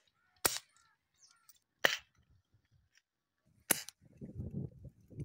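Air rifle firing three sharp shots, spaced about a second and a half to two seconds apart.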